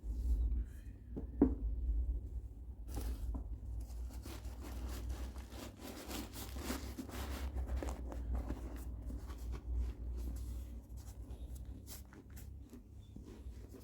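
Handling noise: irregular rustling, scraping and soft clicks as sneakers and their packaging are handled, with one sharp knock about a second and a half in, over a steady low hum.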